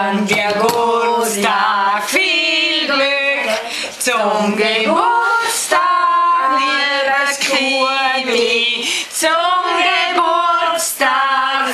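Singing voices, a woman's voice the most prominent, holding and bending long notes, with a few short sharp knocks among them.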